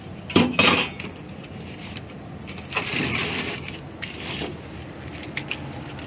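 A dirty pleated furnace air filter being worked out of a tight filter slot: two sharp knocks about half a second in, then the filter frame scraping and rustling against the slot, once around three seconds in and again more briefly near four and a half.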